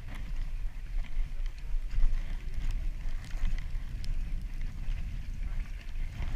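Wind buffeting the microphone with a steady low rumble, over faint scattered clicks as a spinning reel is wound in.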